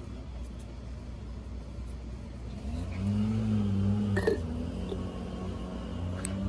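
A motor vehicle's engine running steadily, its hum growing louder about three seconds in, with a sharp click a little after four seconds.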